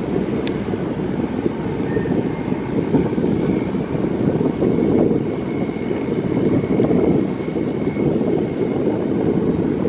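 Fishing boat's engine running steadily as it motors out of the harbour: a continuous low drone.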